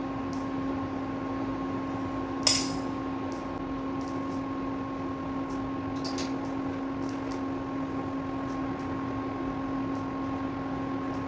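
Steady electric hum of a running appliance such as a fan, one low droning tone with its overtones. A single sharp clink about two and a half seconds in as a steel spoon is set down on the plate, and a few faint taps around six seconds in.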